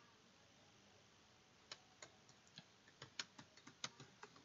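Faint keystrokes on a computer keyboard: irregular taps starting about a second and a half in and coming quicker toward the end.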